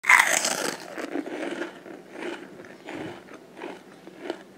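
Crisp fried-chicken crust crackling and crunching as a drumstick is torn apart by hand, loudest as it first breaks, then a run of smaller crackles as the pieces are pulled open.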